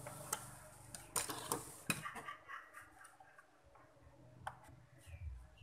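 Scattered sharp clicks and knocks of a television circuit board and its plastic parts being handled: a cluster of taps in the first two seconds and one more past four seconds in.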